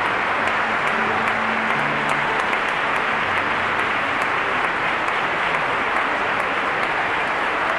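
Large audience applauding steadily. A few low held notes from the orchestra sound faintly under the clapping in the first half.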